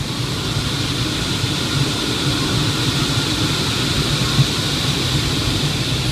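Wind rushing over a Grob Twin Astir glider's canopy, heard from inside the cockpit, growing slightly louder as the glider dives to pick up airspeed, with a faint steady high whistle through it.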